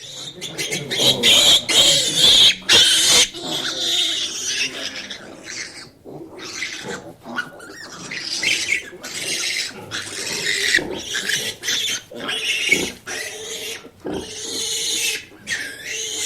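Pigs squealing in a rapid series of short, harsh cries, loudest in the first three seconds.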